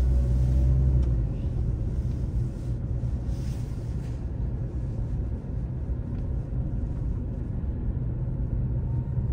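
Car engine and road noise heard from inside the cabin while driving: a steady low rumble, a little louder in the first second.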